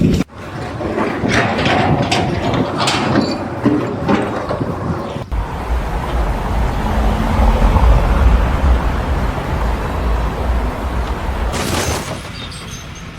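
Loud mechanical noise: clattering and knocks at first, then, after an abrupt change about five seconds in, a steady deep rumble.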